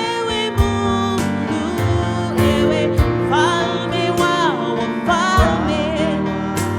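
Church worship band playing a slow gospel song, with a sung melody over keyboard and bass and a steady drum beat.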